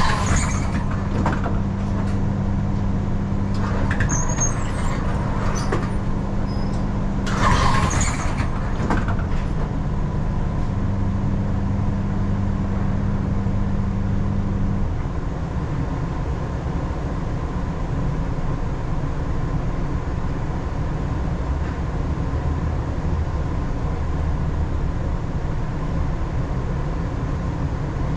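Inside a tram that is nearly at a standstill, a steady electrical hum with low tones runs until about halfway through and then cuts off, leaving a lower drone. A few short hissing bursts come in the first nine seconds.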